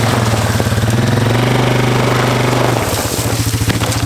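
A small engine running steadily at speed, then easing off to a slower, pulsing idle about three seconds in.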